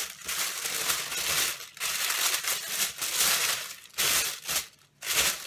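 Packaging being unwrapped by hand, crinkling and rustling in irregular bursts, with two louder bursts near the end.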